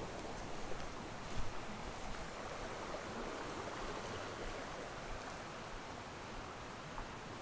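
River water running with a steady rush, with one small knock about a second and a half in.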